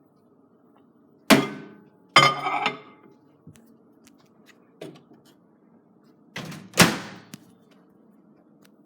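A series of hard clunks and knocks with a short ringing tail: a loud one just over a second in, a rattling clatter a second later, a light tap near the middle, and a double clunk, the loudest, near the end.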